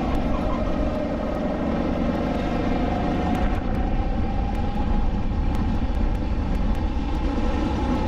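Onboard sound of a SODI LR5 rental kart's 160cc four-stroke engine running hard at racing speed. Its pitch climbs gradually over the first few seconds, then holds steady.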